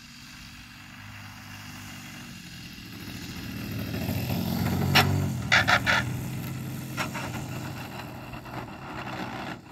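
Desert Aircraft DA-70 twin-cylinder two-stroke gas engine of a large RC plane, fitted with a canister muffler, running at low throttle and growing louder as the plane comes in to land and passes close. A few sharp knocks about halfway through as the landing gear meets the paved runway.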